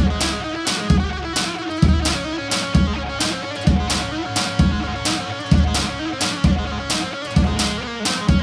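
Halay dance music: a plucked, strummed electric string instrument over a heavy drum beat that lands about once a second.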